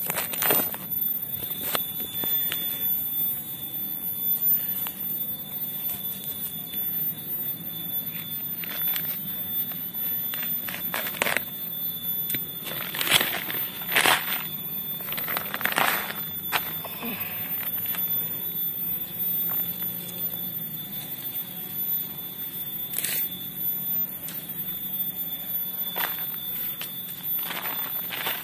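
Black plastic seedling polybag crinkling and rustling in scattered bursts as it is pulled and torn away from the soil root ball of a durian seedling. A steady high-pitched tone sounds underneath.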